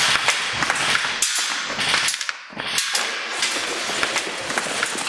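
Sustained rapid gunfire: many sharp cracks in quick succession over a constant noisy din, easing briefly about two and a half seconds in.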